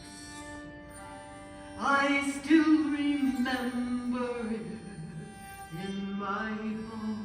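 Background music: a slow melody enters about two seconds in over steady held notes.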